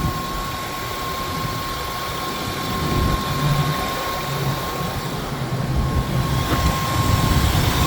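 A 2000 Ford F250's 5.4 litre V8 idling steadily and smoothly, with a new water pump fitted. A thin steady high tone sits above the low engine rumble.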